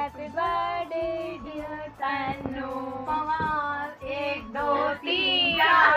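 A song with a high, child-like singing voice over instrumental backing, in held sung notes.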